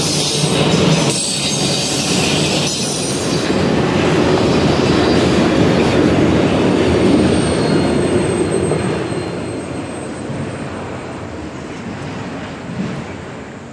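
Autorack freight cars rolling past on the rails, their wheels rumbling with a faint high squeal. The sound fades steadily from about eight seconds in as the end of the train moves away.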